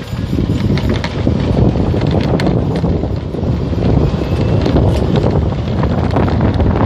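Loud wind buffeting the microphone: a steady low rumble with scattered small clicks and crackles.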